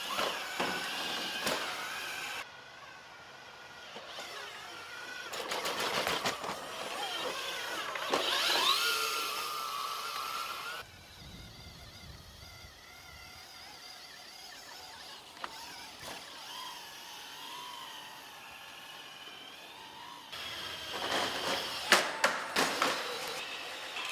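Robot foley sound effects made with household items: a run of mechanical whirs with lines that glide up and down in pitch, separated by clicks and knocks, the knocks clustering near the end.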